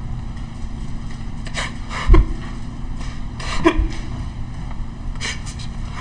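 A young man breaking down sobbing, with a handful of sharp gasping breaths between silences, the loudest about two seconds in, over a steady low hum.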